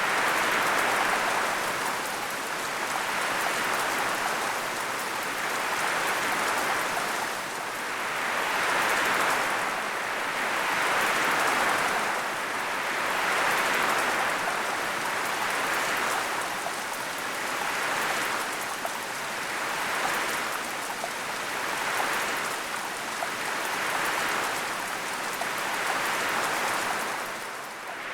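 Steady rain, a dense hiss of drops that swells and eases about every two to three seconds.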